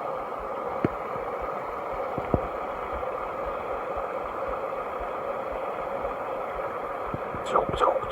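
Steady rush of flowing creek water, with a couple of light clicks and a few short squeaks near the end.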